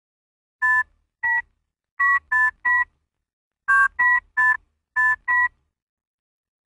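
Ten short telephone keypad touch-tones, each a two-note beep, tapped out in uneven groups like a phone number being dialled.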